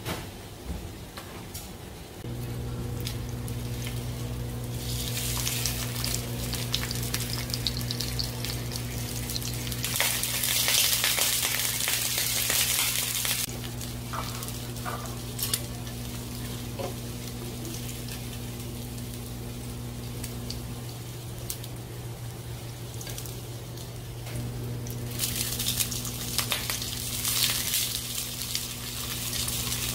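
Meat patties sizzling in hot oil in a small square frying pan, with the sizzle surging loudest near the middle and again near the end as they brown and scorch. Under it, from about two seconds in, runs a steady low electrical hum from a microwave oven heating instant rice, which drops out briefly about two-thirds of the way through.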